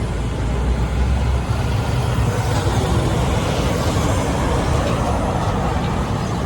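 Heavy diesel vehicle passing in road traffic, its deep engine sound strongest in the first second and a half, then steady traffic noise.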